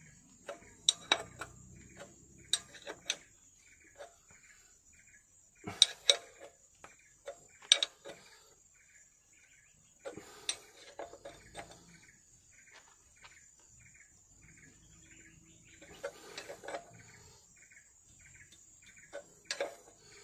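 Irregular metallic clinks and taps of a wrench and hands working on the oil filter fittings under a Nissan RE10 diesel engine, coming in a few short clusters. Underneath runs a faint steady insect trill with a quick repeating chirp.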